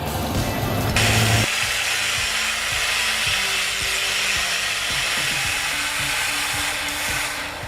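Chainsaw cutting through wood: a loud, even saw noise starts about a second in and stops near the end, with an engine running underneath.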